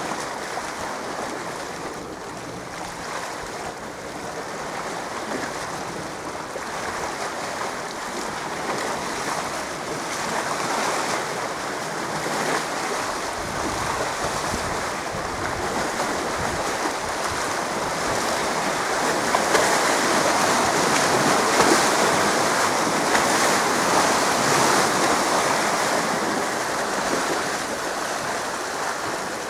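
Sea waves washing, with wind. The steady rush grows louder about two-thirds of the way through.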